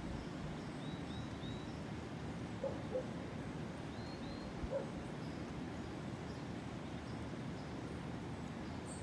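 Jungle ambience: a steady rushing background with a few short high bird chirps, in a quick run of three about a second in and a pair about four seconds in, and a few brief low animal calls in between.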